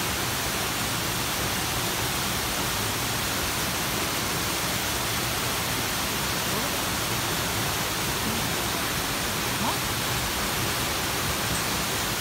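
Waterfall rushing steadily: the constant, even hiss of water pouring down a rock face.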